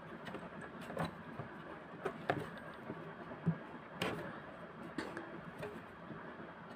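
A cloth-covered finger wiping inside a sewing machine's metal bobbin hook and its plastic housing: faint rubbing with scattered light clicks and taps, the sharpest about four seconds in.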